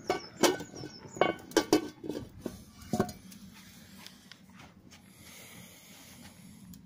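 Metal cooking-pot lid knocking and clinking with a brief metallic ring, about six knocks in the first three seconds, then only a faint steady hiss.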